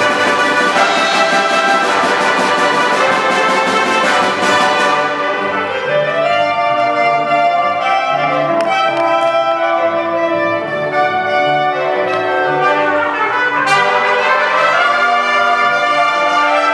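Symphony orchestra playing an arrangement of Mexican sones, led by brass. The full band with percussion strokes plays for the first few seconds, then thins to sustained held lines, and the full orchestra comes back in with the strokes near the end.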